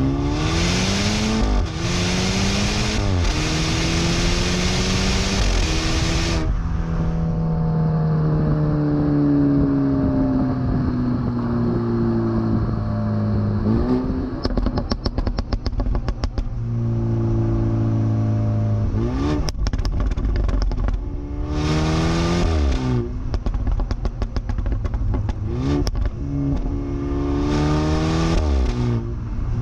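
BMW 328i's turbocharged N20 four-cylinder exhaust through a catless downpipe and the stock valved catback, heard at the twin tailpipes while driving. Several pulls rise in pitch and step down at each upshift. Between them the note falls away off throttle, with crackles on the overrun.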